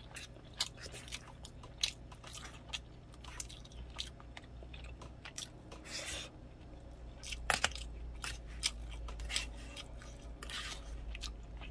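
Chewing and mouth sounds of someone eating rice, with scattered soft clicks and a few louder ones from a plastic spoon against a plastic meal tray.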